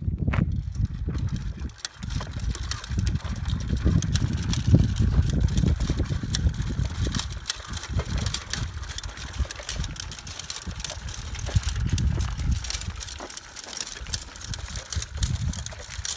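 Walking chair's metal Jansen-linkage legs clattering as it walks on asphalt: many quick, irregular clicks and taps over a low, uneven rumble.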